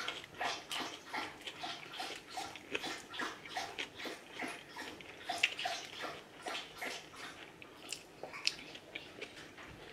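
A person chewing a mouthful of cheeseburger close to the microphone: irregular wet smacks and clicks, about two to three a second.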